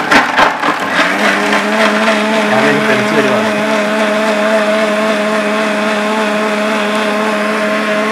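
Electric mixer grinder (mixie) switched on at full speed, blending raw mango pulp with water and ice cubes in its steel jar. It starts suddenly with ice clattering against the blades for about the first second, then runs with a steady motor whine.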